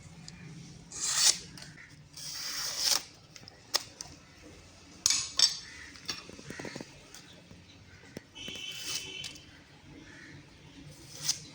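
A handful of short scraping strokes from a steel knife blade, with light metallic clicks and a brief ring.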